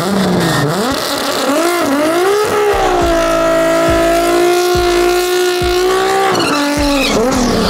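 Mk4 Toyota Supra drag car doing a burnout. The engine's revs climb, are held steady at high rpm for about three seconds while the rear tyres spin, then drop back near the end.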